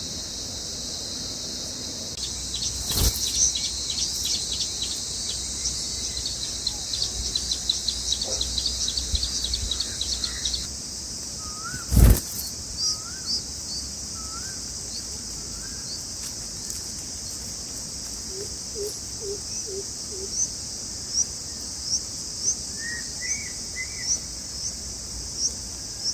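Baby birds in the nest cheeping rapidly and densely for several seconds, typical of nestlings begging to be fed. Under it runs a steady high insect drone, such as crickets. There are two sharp knocks, a few seconds apart, and after the begging stops, single bird chirps come about once a second.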